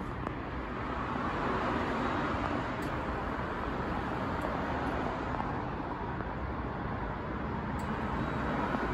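Steady background rumble and hiss, like distant traffic, swelling slightly about a second in.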